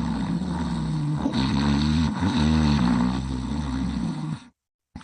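Snoring in sleep: one long, low snore whose pitch wavers up and down. It cuts off abruptly near the end and starts again a moment later.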